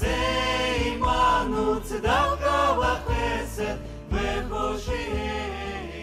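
Music with sung voices: a choir-like vocal melody over a low, sustained accompaniment, growing a little quieter near the end.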